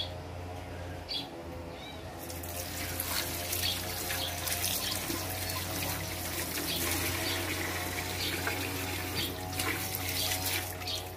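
Tap water running onto slices of white radish being rinsed by hand in a sink. The running water starts about two seconds in.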